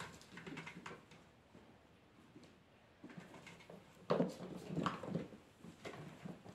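British Shorthair kitten romping at the base of a cat tree: scattered light taps, scratches and knocks of paws and claws on the post and base, with a louder flurry of knocks about four seconds in.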